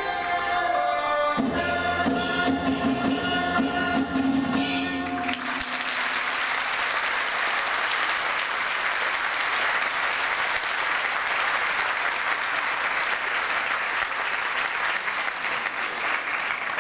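A live ensemble of traditional Chinese instruments plays the closing bars of a dance piece and stops about five seconds in. An audience then applauds steadily.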